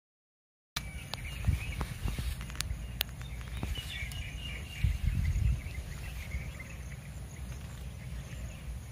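Outdoor ambience that begins a moment in after a brief silence: insects and birds chirping faintly over an uneven low rumble, with a few sharp clicks.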